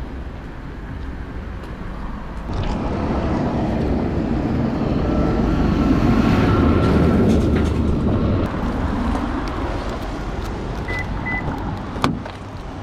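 Road traffic: a vehicle passing, its engine and tyre noise swelling to a peak midway and then fading. Two short high beeps and a sharp knock come near the end.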